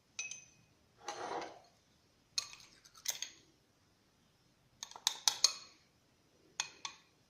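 A metal spoon clinking against a dish while spoonfuls of ground thyme are measured out. It gives a series of short, sharp clinks, with a quick cluster of them about five seconds in.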